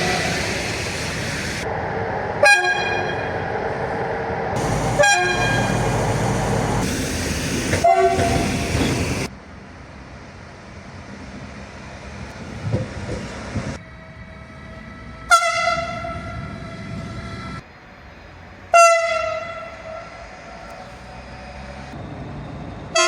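Train horn blasts. Three short blasts about two and a half seconds apart sound over the loud noise of a passing train. After a sudden drop in level, longer multi-tone horn sounds follow a few seconds apart.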